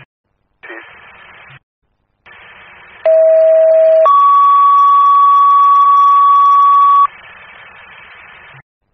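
Fire dispatch radio heard over a scanner: channel hiss cutting in and out, then a two-tone sequential alert page. A lower steady tone for about a second steps up to a higher tone held about three seconds, alerting a fire engine company before it is called to a mutual-aid structure fire.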